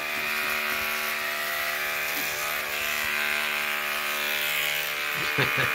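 Corded electric hair clippers running with a steady electric buzz.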